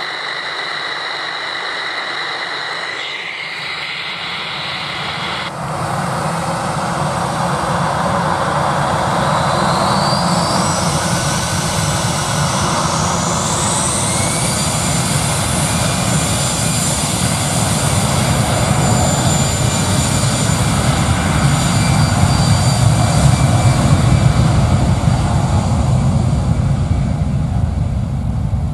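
Airbus A320 jet engines spooling up to takeoff thrust for the takeoff roll. About a third of the way in, a whine rises steadily in pitch over the engine noise, which keeps building and is loudest about three-quarters of the way through as the jet accelerates away down the runway.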